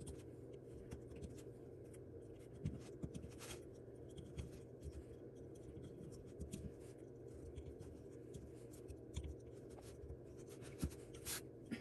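Faint scratching and small clicks of a metal loom hook lifting yarn loops over the pegs of a wooden oval sock loom, over a faint steady hum.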